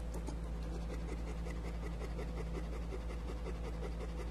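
Rottweiler–German Shepherd mix dog panting steadily with its tongue out, about three to four breaths a second, over a steady low hum.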